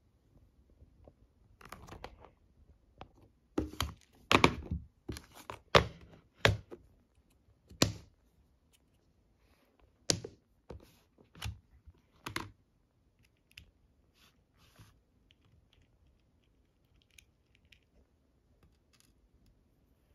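Clear plastic bead organizer boxes and clay beads being handled on a table: irregular sharp knocks and clicks, with a cluster of louder knocks from about three and a half to eight seconds in and a few more around ten to twelve seconds, then only faint light clicks.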